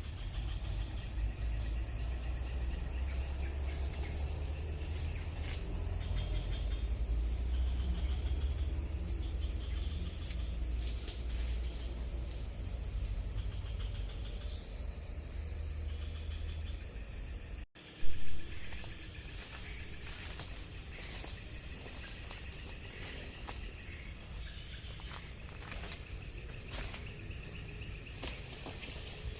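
A chorus of forest insects, crickets among them, buzzing steadily high up, with one insect's chirp repeating at an even pulse. A low rumble underneath stops abruptly about two-thirds of the way through, followed by a short loud thump.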